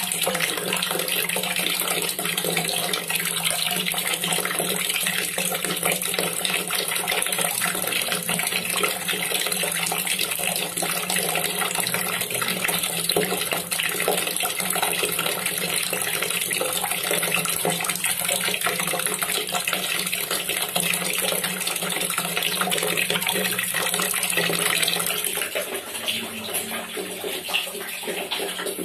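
A stream of water pouring from a tap into a container already full of water, splashing steadily. It becomes quieter about three seconds before the end.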